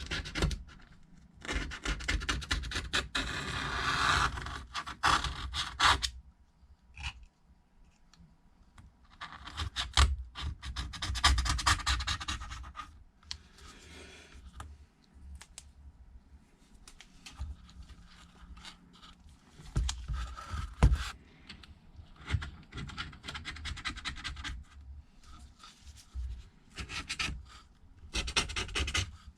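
A hand tool scraping and rubbing old screen adhesive off the rim of a first-generation iPad Air housing, in several spells of scratching with short pauses between.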